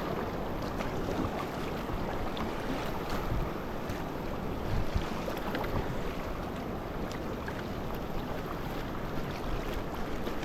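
River water rushing and splashing steadily around the float, a continuous noisy wash with a few small splashes and knocks, with some wind buffeting the microphone.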